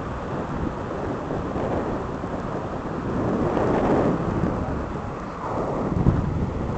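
Surf breaking and washing up a sandy beach: a steady rushing that swells as a wave comes in about four seconds in, with a low rumble of wind on the microphone.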